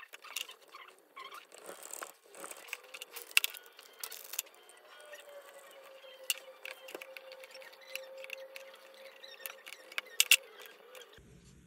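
Close handling of thin leather strips: rustling and scratching as they are rubbed, bent and pulled between the fingers, with scattered sharp clicks and taps, the loudest about three seconds in and twice near the end.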